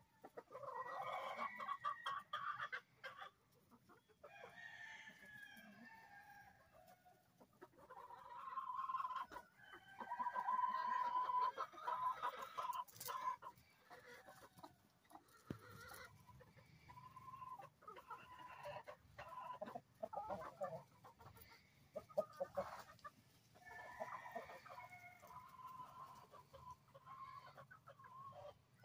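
A flock of chickens clucking in repeated bouts, with a long, loud rooster crow about ten seconds in.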